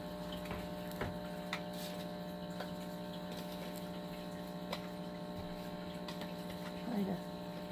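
Steady electrical hum, with a few faint light clicks.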